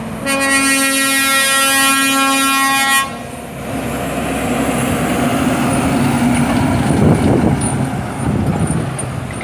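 Heavy-haul truck's air horn sounding one steady note for about three seconds, then the diesel tractor unit running as it hauls its heavily loaded low-loader trailer past, growing louder to a peak about seven seconds in before easing off.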